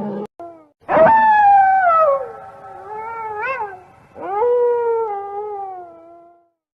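A domestic animal howling: two long drawn-out calls, each sliding down in pitch, the first with a short rise and fall in the middle.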